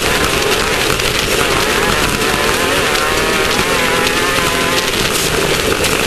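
Class 1600 off-road race buggy's air-cooled 1600cc VW engine running hard, its pitch rising and falling with the throttle, under a constant rush of road and chassis noise.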